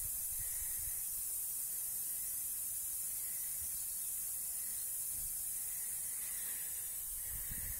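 Compressed air hissing steadily out of the slackened union nut on the air line of a Citroen C4 Grand Picasso's rear air suspension spring, as the pressurised airbag is slowly vented before removal.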